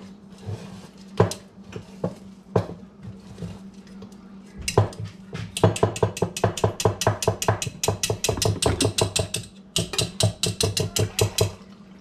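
A whisk stirring thick banana bread batter in a mixing bowl, clacking against the bowl's side: a few separate knocks at first, then about halfway in, fast even strokes of roughly six a second, with a short break near the end.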